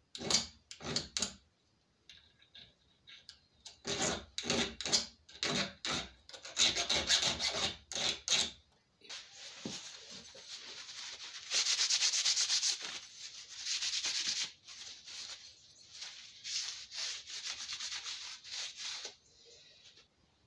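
A paper towel rubbing over an iron lock plate clamped in a vise, wiping off forge scale loosened by a vinegar soak. Short bursts of quick scrubbing strokes come first, then from about nine seconds a steadier, hissing stretch of rubbing that stops near the end.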